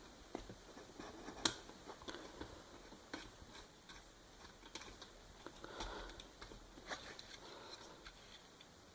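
Faint, irregular clicks and taps of an action-camera clip clamp mount being handled and fitted, with soft handling rustle between them.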